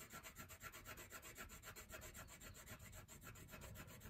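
Felt-tip marker scribbling on paper: quick, faint back-and-forth strokes, about nine a second, as a square is coloured in.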